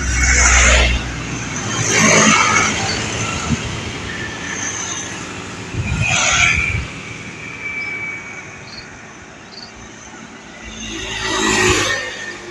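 Road traffic: vehicles pass close by four times, each one a swell of noise that rises and falls over about a second, over a steady low rumble.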